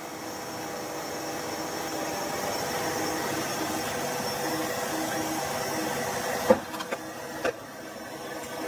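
Compressed air hissing steadily through an air chuck into the Schrader valve of an Amadaxtreme remote-reservoir shock absorber, pressurising the reservoir. Two short sharp clicks come near the end.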